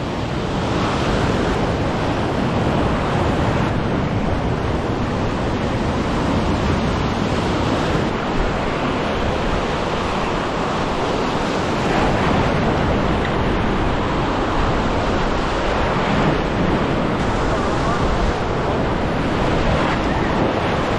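Ocean surf breaking and washing over and around shoreline rocks, a steady rushing wash, with wind buffeting the microphone.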